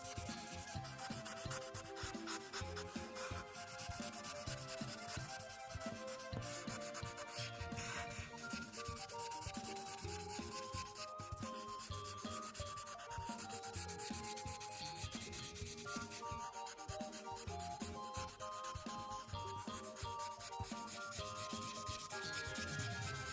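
Marker tips rubbing rapidly back and forth on paper while colouring in, a quick run of scratchy strokes, with a soft background tune underneath.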